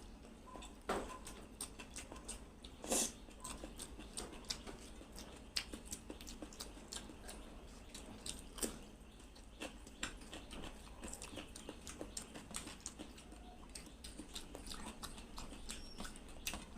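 Close-miked mouth sounds of someone eating rice with egg curry and gravy: a steady run of short, irregular wet chewing clicks and lip smacks, with a few louder smacks now and then.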